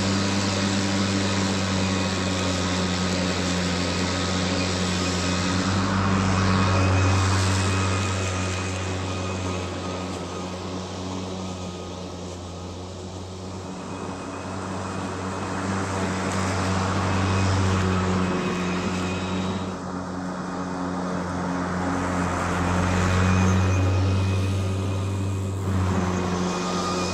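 EGO 21-inch lower-powered single-blade battery lawn mower running, a steady electric motor and blade hum while it cuts grass and bags the clippings. It grows louder and softer a few times as it moves about.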